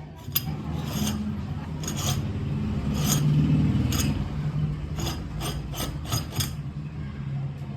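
Metal parts of a seviyan (vermicelli) hand machine rasping and rubbing as it is worked, with irregular sharp clicks, a run of them near the end, over a steady low hum.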